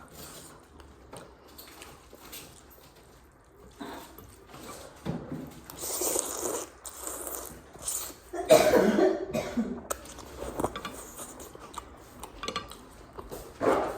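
A woman coughing several times in separate bouts, the loudest a little past halfway; it is the cough of a chest cold.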